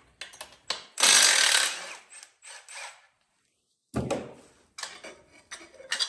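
Tool work on an engine: one short burst of a power tool about a second in, with clicks and knocks of tools and metal parts before and after, and a sharp knock about four seconds in.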